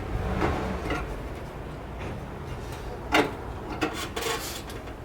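Hand work on quick-release pin hardware: rubbing and scraping of parts being fitted, a sharp knock about three seconds in, then a few lighter clicks.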